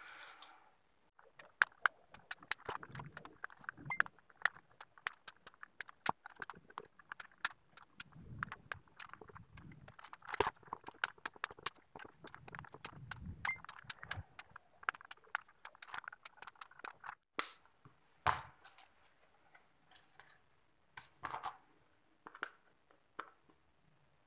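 Side cutters snipping the excess component leads off the solder side of a freshly soldered amplifier circuit board: a long run of sharp clicks, several a second, thinning out near the end. Low rubbing sounds from the board being handled come in between.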